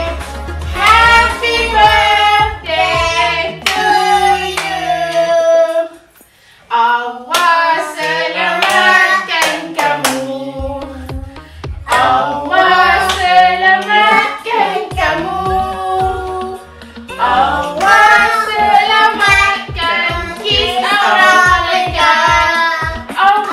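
Family singing a birthday song together, adults and a child, with hand-clapping in time. The singing breaks off briefly about six seconds in, and the clapping is strongest in the second half.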